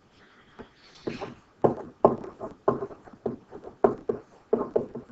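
A series of irregular sharp knocks, starting about a second in and then coming roughly twice a second.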